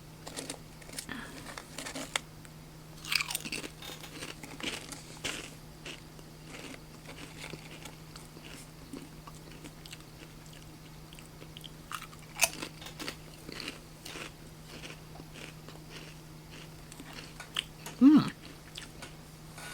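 Smoky Mesquite BBQ Pringles potato crisps being bitten and chewed, with irregular crunches close to the microphone. A steady low hum runs underneath, and there is a short vocal sound near the end.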